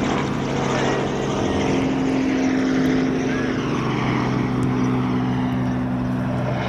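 A steady engine drone, a low hum that holds its pitch throughout, over a background haze.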